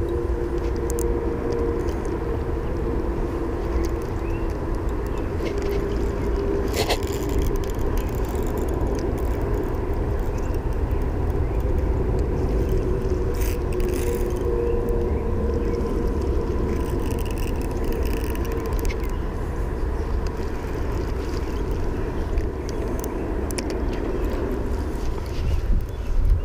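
Steady low rumble of wind and handling noise on a body-worn camera's microphone, with a steady hum and a few light clicks.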